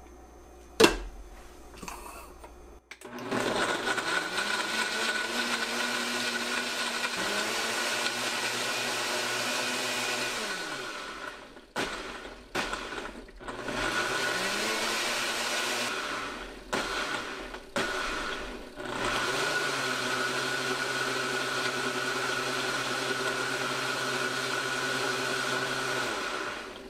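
Breville Fresh & Furious blender running its preset smoothie cycle on frozen pineapple and mango. After a click about a second in, the motor starts, then twice winds down with a falling pitch and pauses before picking up again. It runs steadily through the second half and stops just before the end.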